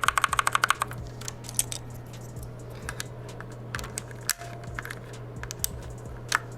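Mechanical keyboard keys fitted with Kailh Black switches being pressed in a fast run of clicks, about eight a second, for under a second. This is followed by scattered single key clicks over a steady low hum.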